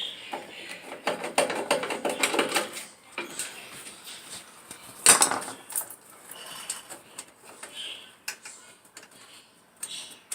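Metal tools and dryer parts clinking, clicking and rattling as they are handled during a repair, with one louder clank about five seconds in.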